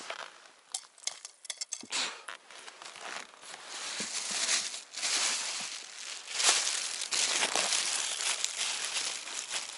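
Crisp crunching and crackling of snow and ice being worked: scattered sharp clicks over the first two seconds, building into a steadier scraping crunch from about four seconds in.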